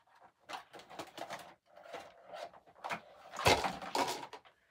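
Close handling noises: rustling and small clicks and knocks, with a louder bump and rustle about three and a half seconds in.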